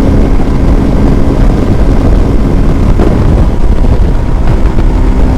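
Hero Xpulse 200 single-cylinder motorcycle engine running at a steady road speed, with wind rushing across the microphone. The engine note breaks and shifts briefly about three seconds in.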